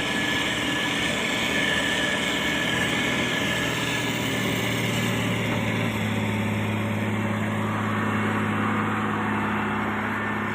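Motor grader's diesel engine running steadily, with a thin high whine over the hum; about halfway through the low engine note shifts and grows stronger.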